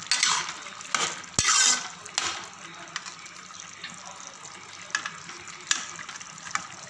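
Ladle stirring a thin, simmering bottle gourd curry in a metal kadhai: several wet swishes and scrapes. The loudest comes about a second and a half in and opens with a sharp knock of the ladle against the pan.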